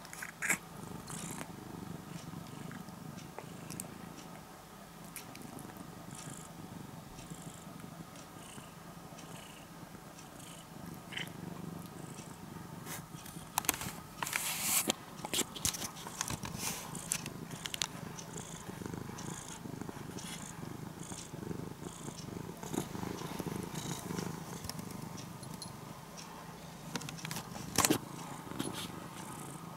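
An orange-and-white cat purring steadily, close up. A few clicks and rustles come through, the loudest about halfway through and again near the end.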